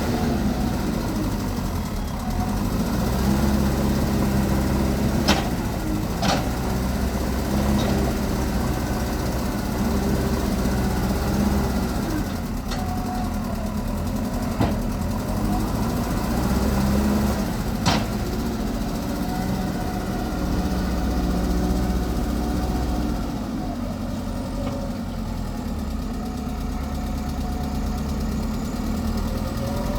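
Backhoe loader's diesel engine running, its pitch stepping up for stretches of several seconds and dropping back to idle. A few sharp knocks sound over it.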